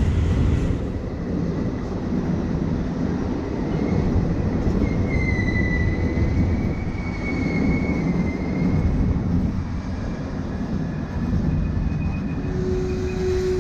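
Regional passenger train's coaches rolling past along a station platform: a steady low rumble of wheels on rail, with a faint high squeal from the wheels for a few seconds midway.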